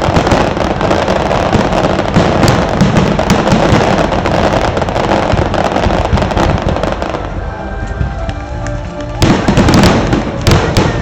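Fireworks display: a dense run of bursts and crackle that thins out about seven seconds in, leaving the show's music, with two more loud bursts near the end.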